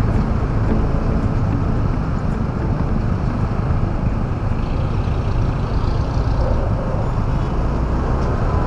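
Motorcycle riding through city traffic: a steady engine hum over a continuous deep road rumble, with other traffic around.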